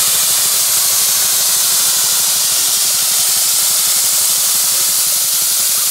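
Miniature steam traction engine venting steam with a loud, steady hiss.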